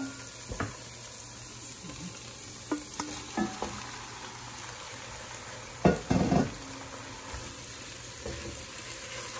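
Marinated chicken pieces and gizzards tipped from a bowl into a pot of frying onions and stirred with a wooden spoon: a steady sizzle under scattered knocks and scrapes against the pot, the loudest clatter about six seconds in.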